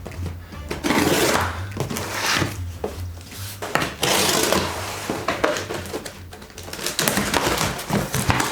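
Packaging being handled and opened: cardboard and wrapping rustling and scraping in several swells, with a few small knocks.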